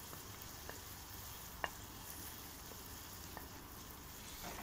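Onion and grated carrot sizzling faintly in butter and oil in a cast-iron pot, with a few separate sharp clicks.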